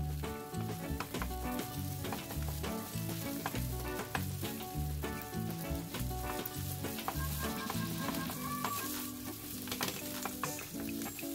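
Fried rice sizzling in a nonstick frying pan while a wooden rice paddle pushes and turns it, with repeated light clicks of the paddle against the pan. Background music with a steady bass line plays underneath.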